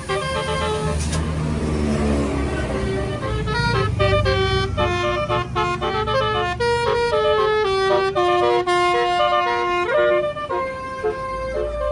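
A tour bus's basuri melody horn playing a tune of held notes that step up and down in pitch, over the low rumble of the bus engine, with a short hiss near the start.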